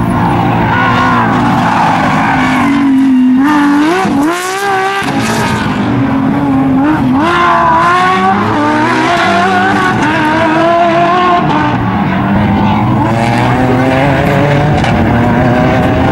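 Porsche 911 rally car's flat-six engine at racing revs. The revs drop sharply about four seconds in and jump straight back up, climb again about seven seconds in as the car pulls through the gears, and then hold high as it runs on down the stage.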